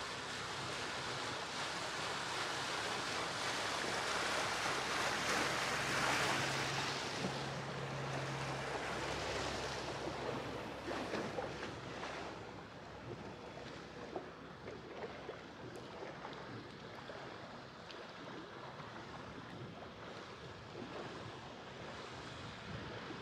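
Water rushing along the hull of a yacht under way, with wind on the microphone. The wash swells for several seconds in the first half, with a low steady hum underneath, then settles quieter.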